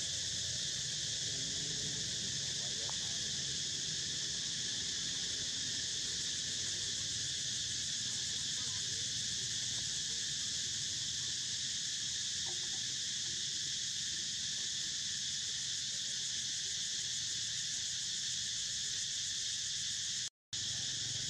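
Steady, unbroken high-pitched drone of an insect chorus, which cuts out for a split second near the end.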